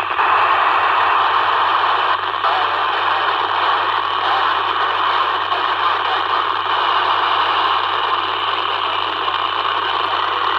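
Loud, steady FM static hiss from a handheld radio's speaker: the open receiver passing only noise, with no voice on the AO91 satellite downlink.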